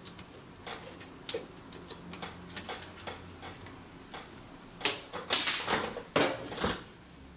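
Light clicks and scrapes of a small metal tool on a PS4 Slim motherboard, working the CR2032 coin-cell battery out of its holder. A louder run of clicks and scraping comes about five to seven seconds in.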